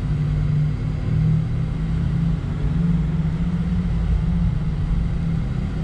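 Porsche Taycan, an all-electric car, driving at speed, heard from inside the cabin: a steady low rumble of tyre and road noise with a constant low hum and no engine note.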